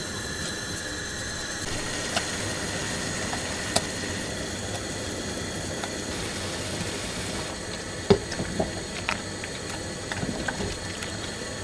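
Stainless steel stockpot of water boiling on a gas hob: a steady bubbling hiss, with a few light clinks of a metal slotted spoon against the pot, most of them in the second half, as torn noodle dough is stirred in.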